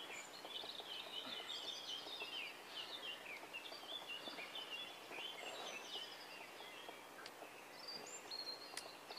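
Songbirds singing: a chorus of many short, quick chirps and warbles.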